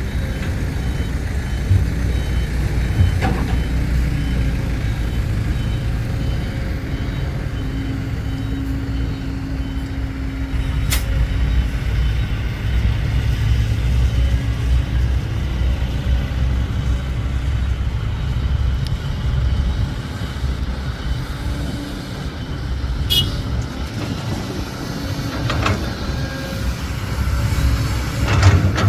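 Diesel dump truck engine running steadily under load, with a reversing beeper sounding briefly at the start and a short sharp hiss about two-thirds of the way through.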